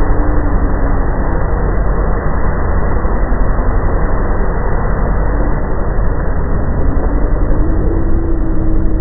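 Loud, continuous low rumbling drone with faint wavering tones drifting through it, of the kind circulated as a mysterious 'strange sound in the sky'.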